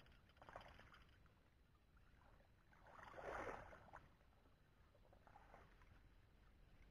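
Faint splashing and sloshing of shallow muddy paddy water as someone wades and works in it, in a few swells, the loudest about three seconds in.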